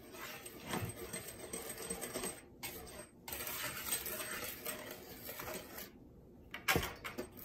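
Large metal balloon whisk stirring dry flour mix in a plastic mixing bowl: the wires rattle, clink and scrape against the bowl, with a couple of sharper knocks, about a second in and near the end.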